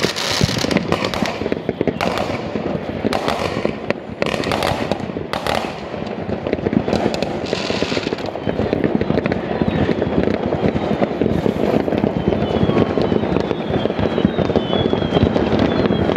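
Many fireworks going off at once across a neighbourhood: a dense, continuous crackle with repeated sharp bangs, the bangs thickest in the first six seconds.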